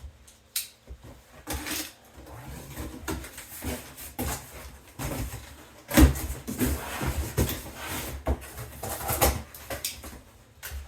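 A cardboard box being opened and unpacked by hand: irregular rustling and scraping of cardboard and packaging, with scattered knocks and a loud thump about six seconds in.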